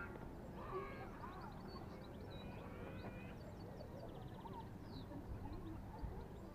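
Birds calling and chirping in short notes and glides, with a quick high trill about four seconds in, over a steady low rumble.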